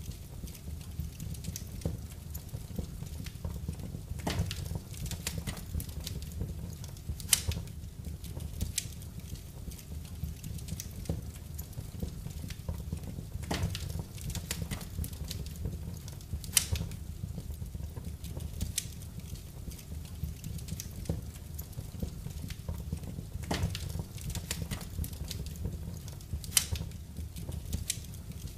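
Wood fire burning in a fireplace, crackling and popping irregularly over a low steady rumble, with a few louder sharp pops every few seconds.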